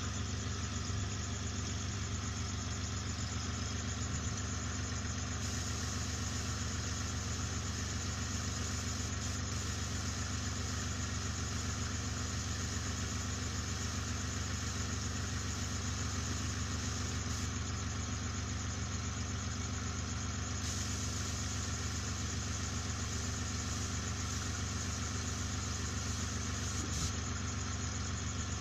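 Airbrush compressor running steadily: a constant low motor hum under an even hiss of air.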